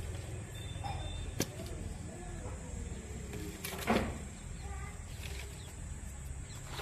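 Outdoor background: a steady low rumble with faint distant voices, a click about a second and a half in, and a short sharp sound about four seconds in.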